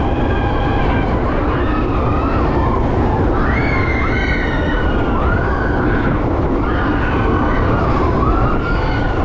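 Riders screaming on a fast spinning Matterhorn ride: several drawn-out high cries that slide up and down in pitch, over a loud steady rush of wind and ride noise.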